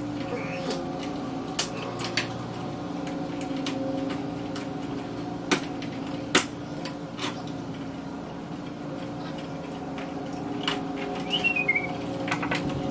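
Screwdriver clicking and scraping on the screws and sheet-metal housing of a fluorescent light fixture, a scattered tick now and then, with a few short high squeaks near the end as a screw turns. A steady hum sits under it.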